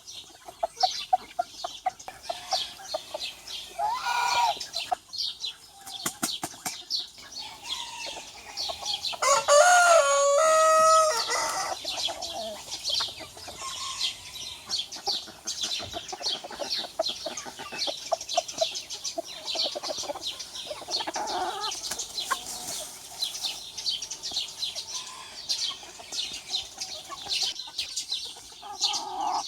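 A rooster crows once, loud and about three seconds long, starting about nine seconds in, with a shorter call about four seconds in. Chickens cluck, and rapid high chirping goes on throughout.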